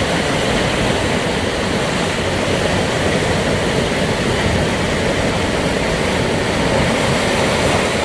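Heavy sea surf breaking against a basalt column cliff, a steady dense rush of crashing and draining whitewater.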